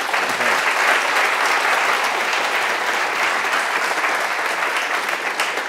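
An audience applauding steadily, many hands clapping together.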